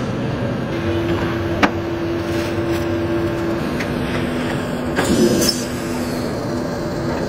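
Industrial factory machinery running steadily with a low hum that drops to a lower pitch about halfway through, and a couple of sharp clicks.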